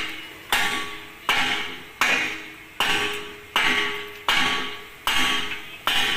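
Steady hammering: eight sharp strikes evenly spaced about three-quarters of a second apart, each ringing briefly.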